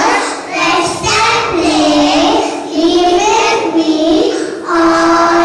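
Young children singing a song, sustained melodic phrases with short breaks between them.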